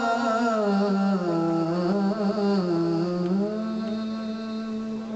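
Men's voices chanting a slow devotional melody without instruments, long notes held and gliding, over a steady held note underneath.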